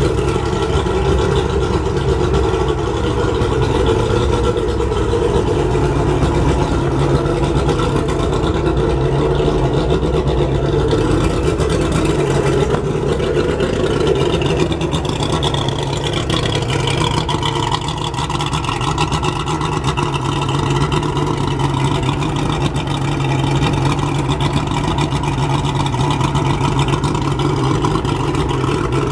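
Mercury 150 hp two-stroke outboard motor running steadily out of the water on a garden-hose water supply, warming up after a cold start.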